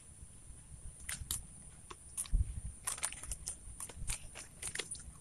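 A person chewing a mouthful of food close to the microphone: irregular crisp crunches that grow busier from about a second in, with a dull thump a little past two seconds.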